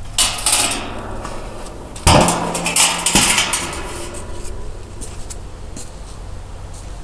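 Sheet-metal truck parts being handled on concrete: clanking and scraping, a short clatter at the start, then a louder run of metal knocks with a brief ring about two seconds in, followed by a few light clicks.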